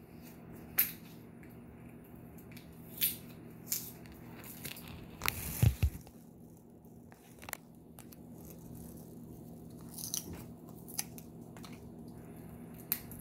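Scattered clicks, taps and knocks of things being handled on a kitchen counter, with a louder cluster of thumps and rustling about five to six seconds in.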